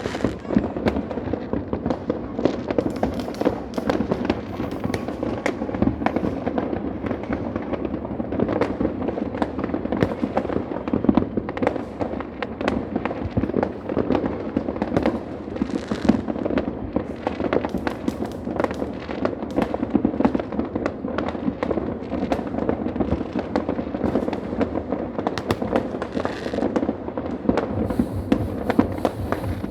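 Many firecrackers and fireworks going off at once, a dense, unbroken crackle of pops and bangs.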